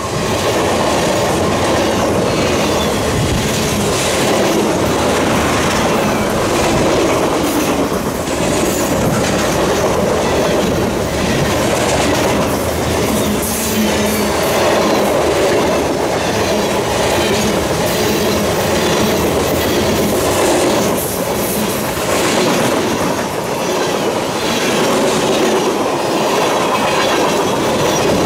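Freight train's covered hoppers and tank cars rolling past at close range: steady rumble of steel wheels on rail with repeated clicking as the wheel sets cross rail joints.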